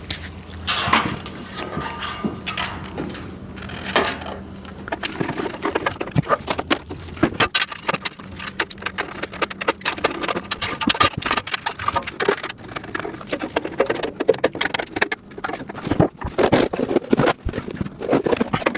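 Plastic parts bins and rack pieces being handled: dense clicking and clattering that grows busier about five seconds in, over a low hum that stops about seven seconds in.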